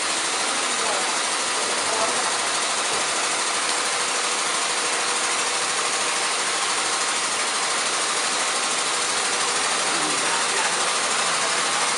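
Steady, loud mechanical rushing noise, like machinery running without a break.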